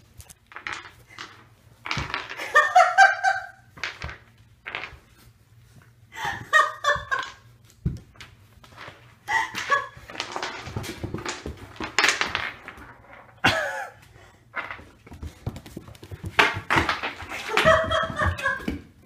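A Border Collie/Australian Shepherd puppy at play on a hardwood floor: many sharp clicks and knocks on the wood. About four short bursts of high-pitched voice break in, each in quick repeated pieces.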